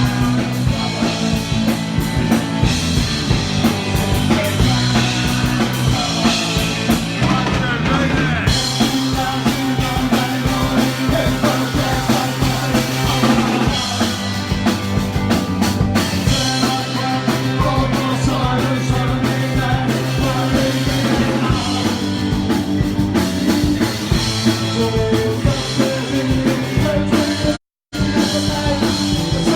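Live punk rock band playing loud: electric guitars, bass guitar and drum kit. The sound cuts out completely for a moment near the end.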